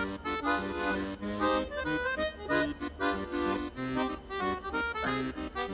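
Background music: a solo accordion tune in a comic, Parisian style, with short bass notes underneath.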